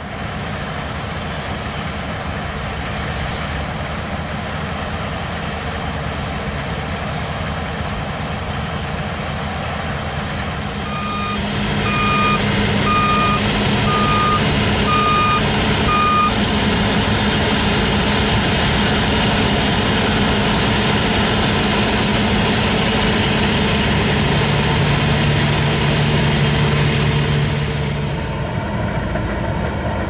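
New Holland TC56 combine harvester running steadily while harvesting rice, getting louder about a third of the way in and easing off again near the end. A reversing alarm beeps about once a second for some five seconds while it is loudest.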